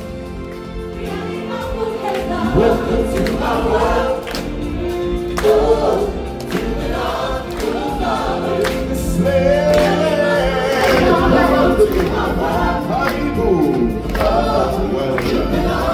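A live ensemble of voices singing together over accompanying music, a stage-show musical number.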